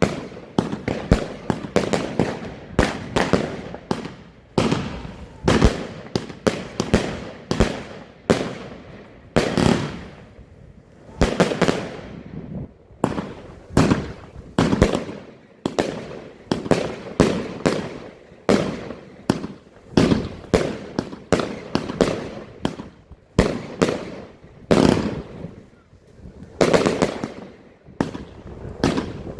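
Alpha Fireworks 'The Vault', a 144-shot 25 mm fireworks cake, firing in a rapid, unbroken string of bangs, about two to three a second, each trailing off in a short echo.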